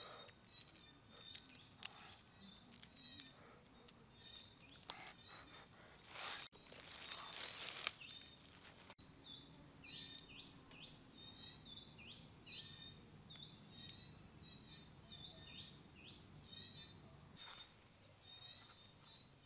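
Faint small clicks and rustling as boiled quail eggs are shelled by hand, then small birds chirping in a quick run of short calls. A faint steady high tone runs underneath.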